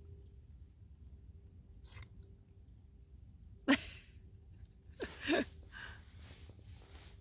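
A horse gives one sharp snort about halfway through, then a short breathy sound with a wavering pitch follows about a second later.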